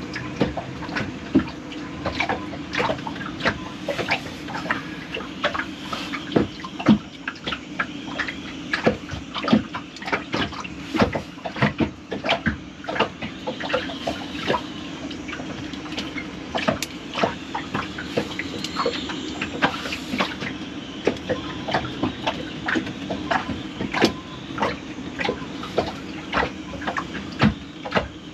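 Irregular small clicks and taps of hands working metal parts of a bilge pump, a cotter pin being worked into place, over a steady low hum, with water dripping and trickling.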